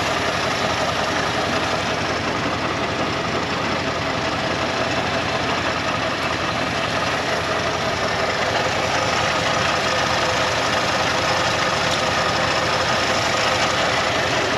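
The 1984 Ford F-150's carbureted 302 V8 idling steadily in neutral, heard up close under the open hood.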